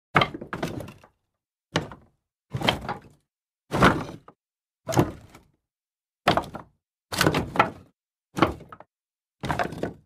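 Pieces of wood tossed down one at a time, each landing with a short clatter, some with a quick second knock as they bounce. About nine separate tosses, a second or so apart, with silence between them.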